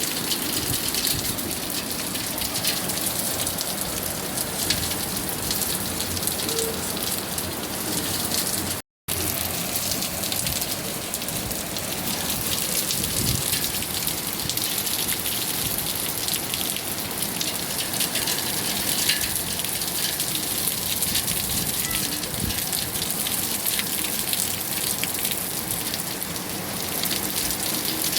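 Steady rain falling, a dense even wash of sound made up of many separate drop hits. The sound cuts out completely for a moment about nine seconds in.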